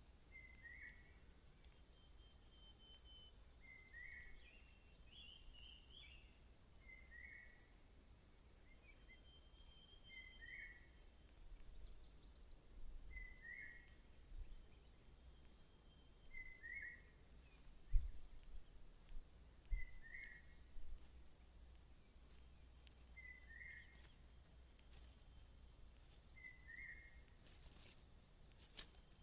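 Faint outdoor birdsong: a short call repeated about every three seconds, with many thin, high chirps around it. Two soft low thumps come about two-thirds of the way in.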